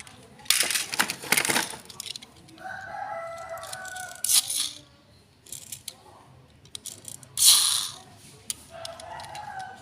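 Bursts of rustling and rattling from handling a toy and its packaging, three times, and between them a long pitched call that sounds twice.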